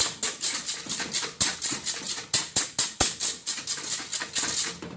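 Wire whisk beating eggs and sugar vigorously in a stainless steel basin over hot water, a fast rhythmic scraping and rattling of wire on metal at about four to five strokes a second. The eggs are being whisked to a thick, creamy sabayon.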